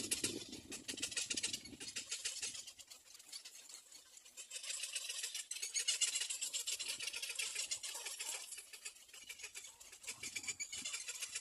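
Little black cormorant chick calling: rapid, high-pitched chattering in three spells, with quieter gaps between them.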